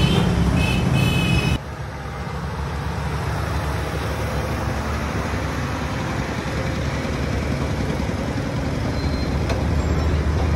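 Heavy truck engine running with road and traffic noise as it hauls a multi-axle trailer loaded with a precast concrete bridge girder. For about the first second and a half a high pulsing tone sounds in short spells; then the sound changes abruptly and the steady engine and traffic noise goes on.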